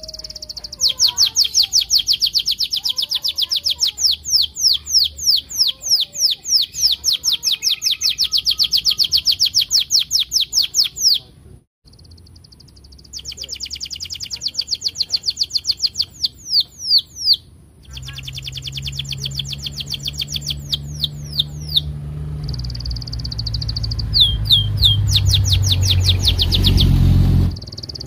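Domestic canary singing long rolling trills of rapid, repeated downward-sweeping 'cuit' notes, about four a second, with a short break near the middle. A low rumble builds through the second half under the song and cuts off abruptly near the end.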